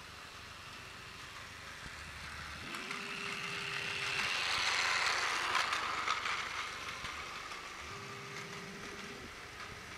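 Plarail battery toy train, the Meitetsu 1000 series Blue Liner, running on plastic track: a whirring motor and wheel rattle that grows louder to about halfway through as the train passes close, then fades away.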